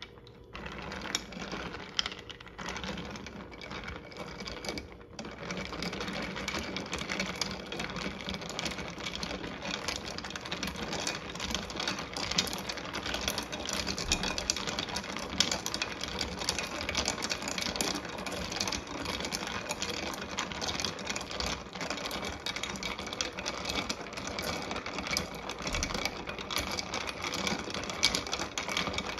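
Long plastic spoon stirring ice in a glass pitcher of peach agua fresca: rapid, irregular clinking and rattling of ice and spoon against the glass.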